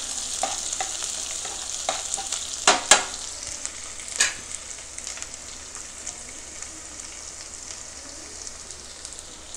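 Sliced small onions, curry leaves and green chillies sizzling as they fry in groundnut oil in a non-stick pan, with a spatula stirring through them in the first few seconds and a few sharp clicks around three and four seconds in. After that the sizzle goes on by itself, a little quieter.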